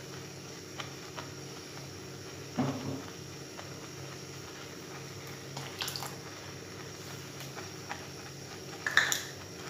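A pan of milk curdled with lemon juice bubbling at a steady boil, with a silicone spatula now and then knocking and scraping against the pan, loudest near the end.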